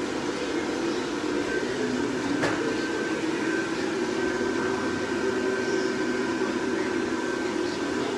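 Blower fan of an air-inflated Christmas lawn decoration running steadily, a constant whirring hum with a faint high tone. A single click about two and a half seconds in.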